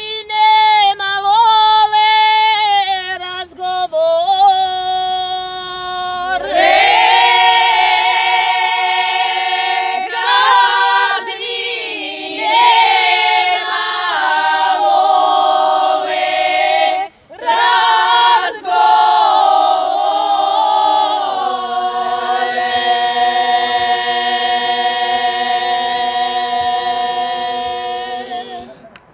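A group of women singing an unaccompanied folk song. A single voice leads for the first few seconds, the others join about six seconds in, and the song ends on a long held chord that fades out.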